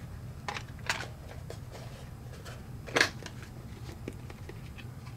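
Plastic case halves of a Fluke 87 multimeter being handled and fitted back together: a few sharp clicks and knocks, the loudest about three seconds in.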